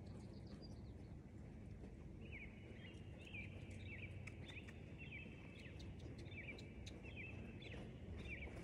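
A songbird singing a string of short, repeated chirped phrases, starting about two seconds in, over a steady low outdoor background rumble.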